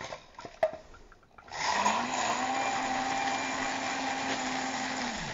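Spindle drink mixer flash-blending a cocktail with crushed and cracked ice in its metal cup. A few light clicks, then about a second and a half in the motor starts, rising slightly in pitch as it spins up. It runs steadily for about three and a half seconds and cuts off abruptly just before the end.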